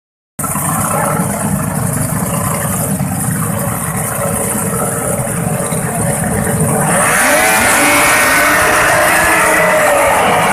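Several 50 hp racing outboard motors running low at the start line. About seven seconds in they open up together, the sound getting louder with several rising pitches as the boats accelerate away at full throttle.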